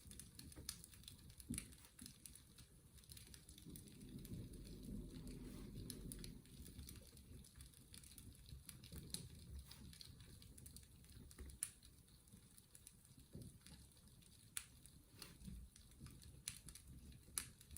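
Faint fireplace crackling: scattered small pops and snaps over a soft low rumble that swells briefly about four seconds in.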